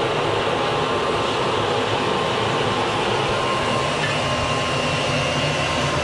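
Small electric blower forcing air into a homemade bucket furnace that is melting aluminium cans, running steadily together with the fire in the furnace, with a faint whine over the rush of air.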